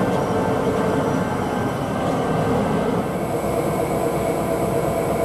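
Diesel locomotives running close by as they roll slowly along the track, a steady loud engine rumble with a thin whine over it; a high faint tone joins about three seconds in.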